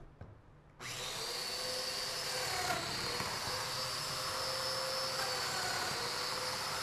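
Festool Domino 500 joiner switched on about a second in and running with a steady high whine while plunge-cutting mortises in hickory spindle stock.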